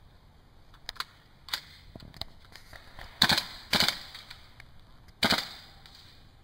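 Airsoft guns firing: a few faint pops in the first couple of seconds, then three louder shots about three, four and five seconds in.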